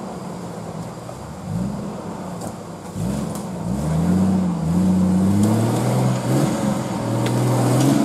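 Off-road competition 4x4's engine revving under load, rising and falling in pitch several times, then holding higher and louder as the vehicle claws its way up a steep muddy bank.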